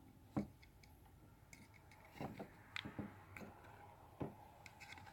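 Faint, irregular small clicks and taps of a die-cast toy car being handled and turned over in the fingers.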